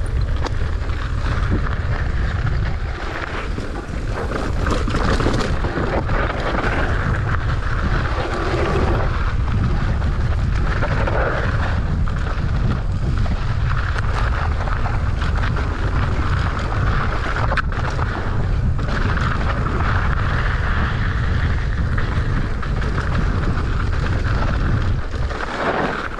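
A mountain bike descending a loose-dirt downhill trail: wind rushing over the microphone and tyres rolling on loose ground, heard as a steady low rumble with a rougher hiss above it.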